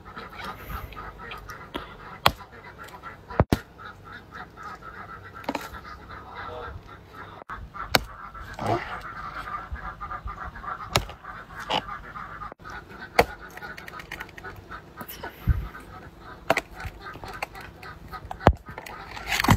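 A metal hoe striking the base of a large bamboo shoot and the soil around it, with sharp blows coming irregularly every one to two seconds. A steady high chatter runs in the background throughout.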